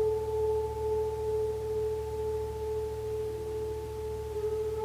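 Gong ringing on with a sustained, steady tone. Two pitches are held together and slowly fade, over a low hum.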